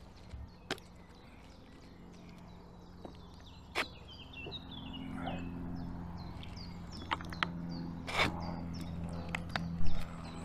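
Small birds chirping in short, quick descending notes, with a few sharp knocks and a low steady hum underneath.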